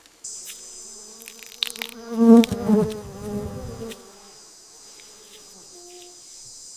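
A steady, high insect drone, like cicadas or crickets, with a louder, lower pitched sound that swells for about two seconds near the middle.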